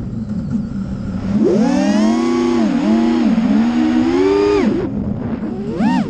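Brushless motors of a 5-inch FPV racing quadcopter whining with the throttle: a low hum at first, then a sharp rise in pitch about a second and a half in that wavers up and down, drops near five seconds and gives a quick up-and-down blip just before the end. Wind rushes over the onboard microphone underneath.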